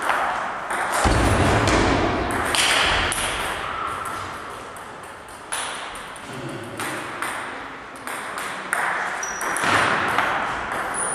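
Table tennis balls clicking off bats and the table in a gym hall, in scattered, irregular taps, with a louder low thud and rumble about a second in.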